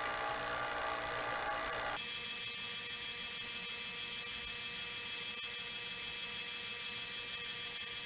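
JB 6 CFM two-stage vacuum pump running steadily while evacuating an air conditioning line set, a constant mechanical hum with steady whining tones. The sound changes abruptly about two seconds in and then runs on evenly.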